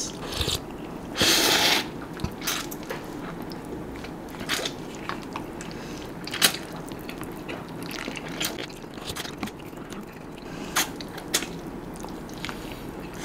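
Close-up eating of Samyang Buldak cheese cup noodles: slurping and chewing, with many short wet mouth clicks and smacks. A longer slurp comes about a second in.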